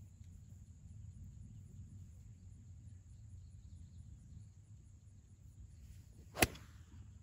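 A golf iron striking a ball off fairway grass: a brief swish of the downswing and one sharp crack about six seconds in, over a steady low rumble.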